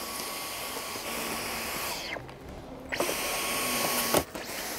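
Dyson cordless stick vacuum running with a steady whine. It stops about two seconds in, starts again about a second later, and cuts out briefly near the end.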